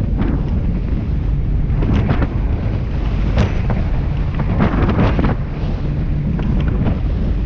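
Heavy wind buffeting the microphone of a Searider rigid inflatable boat running fast through choppy sea. Several sharp splashes of spray and waves slap against the hull.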